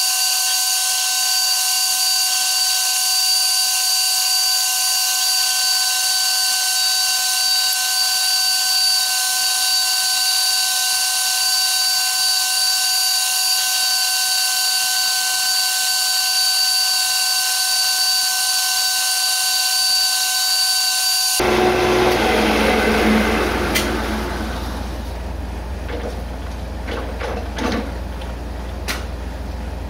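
Metal lathe facing the end of a 1144 Stressproof steel bar: a steady, high-pitched machine whine with the hiss of the cut. About two-thirds of the way through the sound changes suddenly to a quieter, lower hum, with a few sharp clicks near the end.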